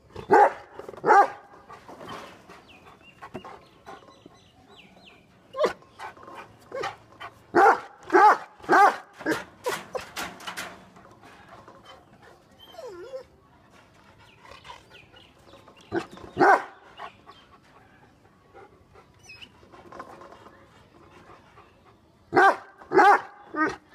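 Great Dane and Rottweiler barking in separate bursts: two barks at the start, a quick run of barks a few seconds in, two more past the middle and three near the end. A brief whine comes in between.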